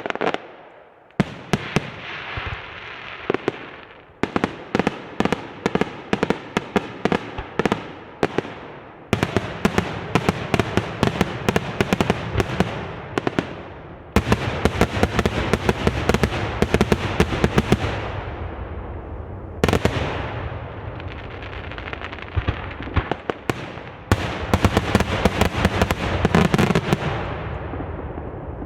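Fireworks display: rapid volleys of sharp bangs and crackles, coming in waves that each start suddenly and then thin out, a new wave every few seconds.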